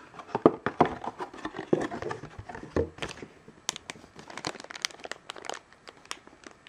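Thin clear plastic bag crinkling and crackling as fingers handle and pull at it, densest in the first half and sparser after.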